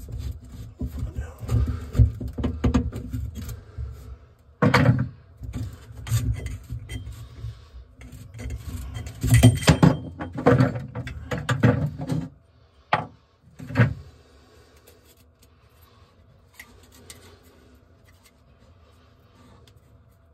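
Metal sink drain parts being unscrewed and worked loose by hand under a basin: rubbing, scraping and clunking, with a few sharp knocks. After about two-thirds of the way through it goes fairly quiet.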